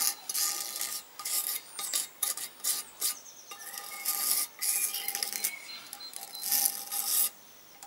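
A hand scraper working along the aluminium head mating surface of a motorcycle cylinder block, scraping off old silicone sealant in many short, irregular strokes. A few strokes give a brief squeak.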